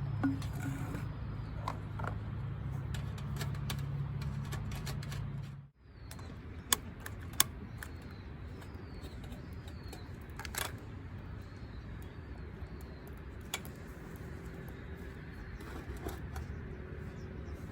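Small birds chirping in short, falling calls over outdoor background, with a few sharp clicks and clinks. A steady low hum in the first six seconds cuts off abruptly.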